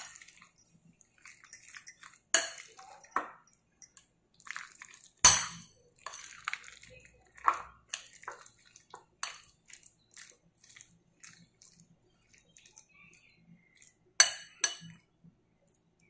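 Metal spoon stirring mashed roasted eggplant in a fluted glass bowl: irregular clinks and scrapes of the spoon against the glass, with the sharpest knocks about two, five and fourteen seconds in.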